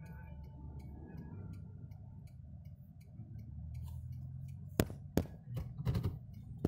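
Car engine idling with a low hum in the cabin, and a turn-signal indicator ticking evenly, about three ticks a second. About five seconds in come several sharp knocks and rubs from the phone being handled.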